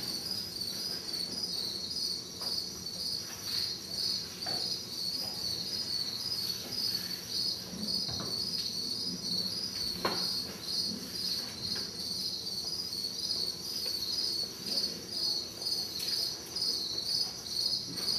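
Crickets chirping in an even, pulsing rhythm, over a faint low background rumble, with a sharp click about ten seconds in.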